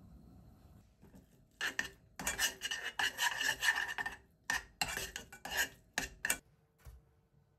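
A spoon scraping and stirring scrambled eggs in a nonstick pot. A quick run of rasping strokes starts a second and a half in, followed by a few separate strokes before it stops.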